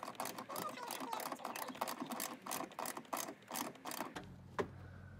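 Hand socket ratchet clicking in quick strokes, about five a second, as a 10 mm bolt is driven into the Lexus RX350 power liftgate motor's bracket. The clicking stops about four seconds in, leaving a faint steady hum.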